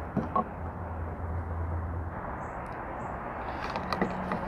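Steady outdoor background hiss, with a few light clicks and knocks near the start and about four seconds in, as a bottle of fuel additive rests in a car's fuel filler neck.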